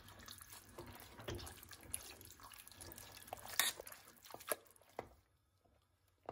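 Potato masher pressing into a thick, wet mass of cooked wheat and chicken in a stainless steel pot: faint squelching with a few sharp knocks of the masher against the pot about three and a half to five seconds in.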